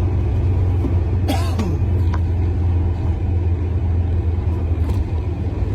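Steady low rumble of a running vehicle, with a brief falling squeal a little over a second in.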